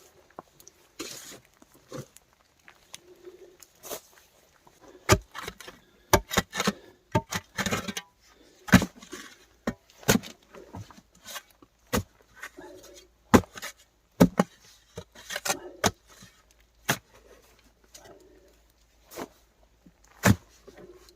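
Irregular sharp knocks and thuds, roughly one to two a second, with short low soft calls in between.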